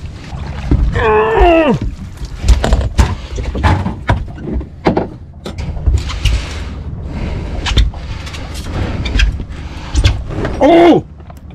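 Repeated knocks, bangs and thuds on a boat deck as a landing net holding a large lingcod is hauled aboard and handled. A man gives a short exclamation with falling pitch about a second in, and another near the end.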